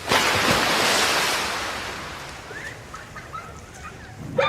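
A sudden burst of rushing noise that fades away over two to three seconds, with a few faint short chirps as it dies down.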